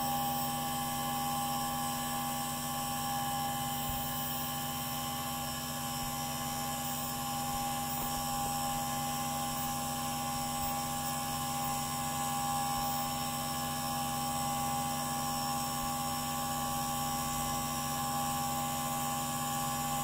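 Spindle of a CNC 3020 router running, with a 6 mm end mill cutting plywood: a steady whine of several tones over a light hiss that holds without a break.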